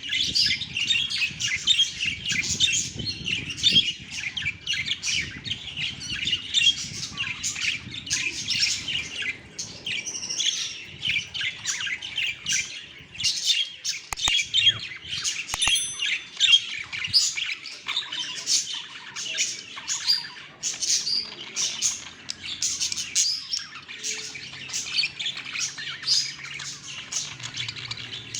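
Budgerigars chirping and chattering nonstop, a dense stream of short high chirps, warbles and the odd squawk.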